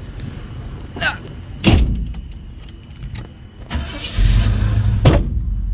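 A car door shuts with a thump, then about four seconds in a second-generation Chevrolet Camaro's engine starts and keeps running steadily.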